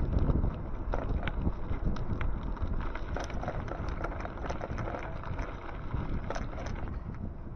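Wind buffeting the microphone and road rumble from a moving e-bike, with scattered small clicks and rattles.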